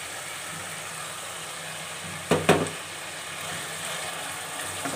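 Chicken pieces sizzling in a pan over the flame as a spatula stirs tomato ketchup and garlic sauce through them. A little past halfway, two quick knocks of the spatula against the pan.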